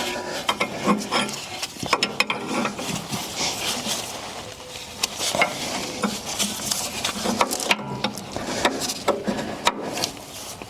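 Wrench work on a hydraulic hose fitting: irregular metal clicks, scrapes and rubbing as the fitting is tightened by hand.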